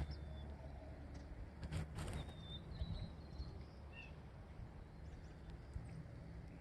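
Faint outdoor ambience: a steady low rumble with a few short, high bird chirps.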